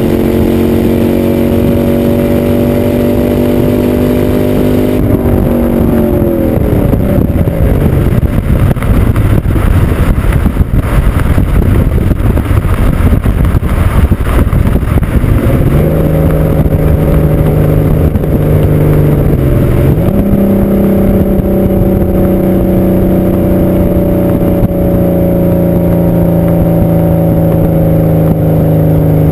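Exhaust of a Camaro Z28's LS1 5.7-litre V8 heard right at the tailpipe while driving at speed. The note climbs slowly, drops sharply about five seconds in, and gives way to a long rough, unsteady stretch. A steady note then returns and steps up in pitch around twenty seconds in, easing down gradually after that.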